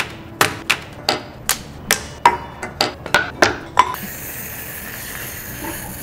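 A quick run of about a dozen sharp knocks as assorted objects are set down one after another on a hard countertop, followed by a steady hiss for the last two seconds.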